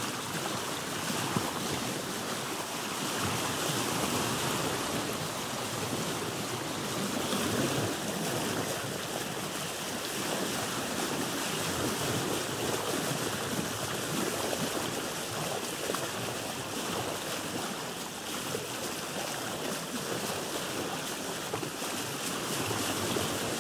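Sea water rushing along a sailboat's hull under sail, mixed with wind: a steady, even rush that swells a little now and then.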